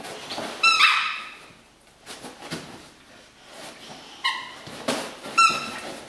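A boxer dog squeezing a squeaky toy: short high squeaks, one about a second in and a few more near the end, with softer noise between.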